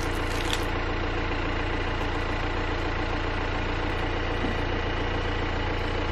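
Car engine idling steadily, a continuous low hum.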